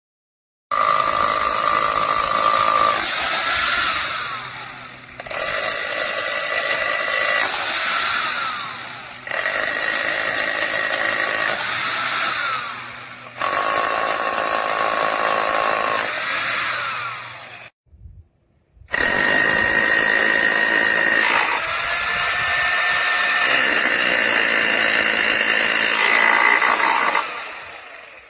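Dong Cheng SDS-Plus rotary hammer drill, a corded 9.2 amp tool, run in five bursts of a few seconds each. Each burst ends with the motor winding down in a falling whine.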